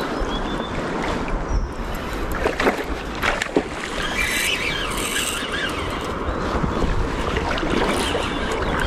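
Wind buffeting the microphone over the sound of river water, with a few short, sharp clicks about two and a half to three and a half seconds in.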